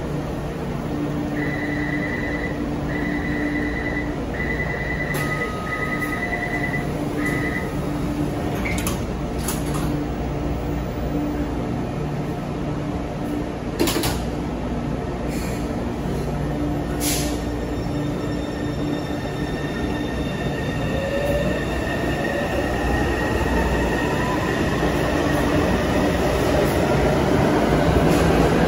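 Taipei Metro C301 train leaving a station. The door-closing warning beeps sound several times, the doors shut with a knock about halfway through, and then the traction motors' whine rises steadily in pitch as the train accelerates away.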